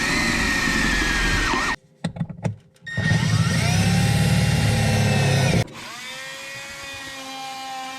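Power tools working on the plastic Packout base in short edited clips, each cut off abruptly: first a tool running with a steady high whine, then a few clicks in a brief quiet gap, then a tool running loudly for about two and a half seconds. The last few seconds hold a quieter steady hum.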